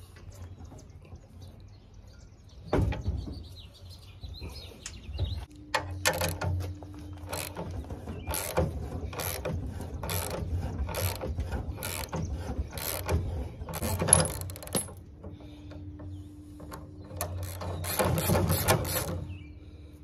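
The forcing screw of a ball joint press, clamped in a bench vise, being turned in short strokes with a wrench to press a piston pin out of a connecting rod, with regular metallic clicks about one and a half a second.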